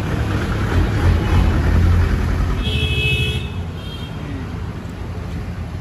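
Road traffic: a motor vehicle passing close by, its engine rumble loudest about two seconds in. A short vehicle horn toot sounds about three seconds in, with a fainter, briefer one just after.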